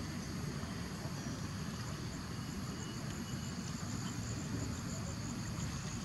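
Steady outdoor background: an even low rumble with insects trilling high and faint over it.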